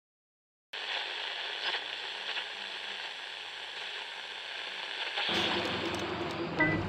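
Steady hiss of rain, starting after a brief silence, with faint scattered ticks of drops. A low rumble joins about five seconds in.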